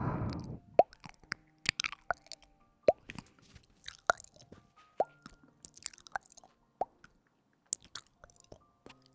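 Close-miked ASMR trigger sounds: a soft breathy puff at the start, then sharp wet clicks and pops about once a second, mixed with crackly rustling.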